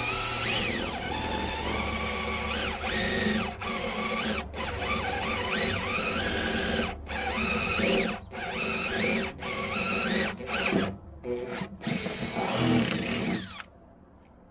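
Power drill boring bolt holes through a jon boat's transom, its motor speeding up and slowing down with the trigger and pausing briefly several times, then stopping near the end.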